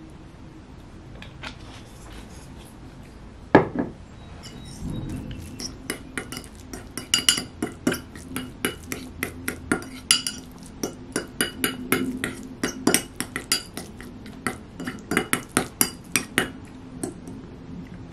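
Metal fork mixing mashed sardines in a ceramic bowl, clinking and scraping against the bowl several times a second. There is a single loud knock about three and a half seconds in, before the stirring starts.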